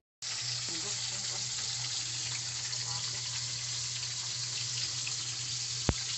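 Water running steadily from a tap, an even hiss with a low hum beneath it, and a single sharp click near the end.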